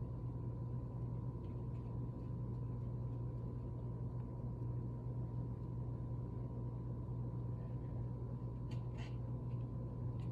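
Steady low hum of room background, with a faint steady high tone over it and a few faint light clicks about nine seconds in.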